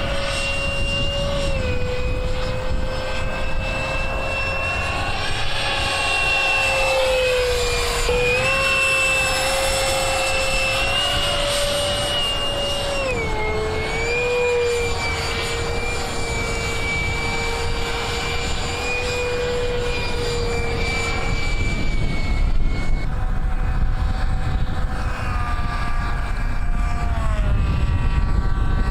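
A radio-controlled model plane's motor and propeller whine steadily overhead, changing pitch in steps with the throttle. The pitch sweeps down and back up about eight seconds in as the plane passes, drops as it is throttled back about halfway through, and fades out later. Near the end a different whine rises and falls, with a low wind rumble underneath.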